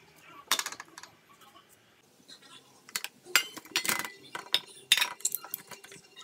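A knife clicking on a plastic plate as a tomato is cut, then tomato pieces and the plate's edge knocking into a stainless steel bowl. It is a run of clicks and clinks with a short metallic ring, about three to five seconds in.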